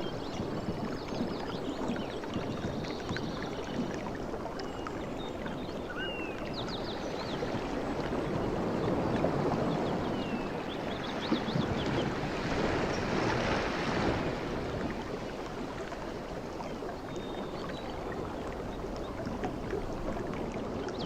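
Steady rush of flowing water, swelling for a couple of seconds in the middle, with short high chirps now and then.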